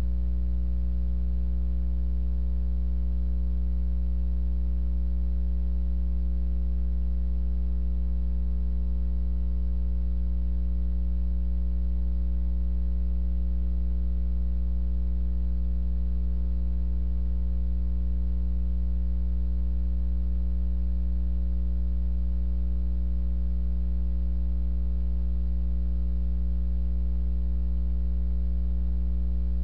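Steady electrical mains hum: a low, unchanging hum with a ladder of buzzy overtones above it.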